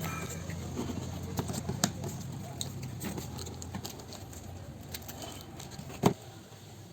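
Cardboard packaging of a boxed pedestal fan being handled: scattered light taps and rustles, with one sharper knock about six seconds in, over a low steady hum.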